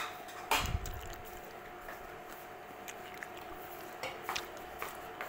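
A sharp click, then a soft knock with a short low thud about half a second in, and a few small clicks later, from things handled on the stone countertop, over a faint steady hum.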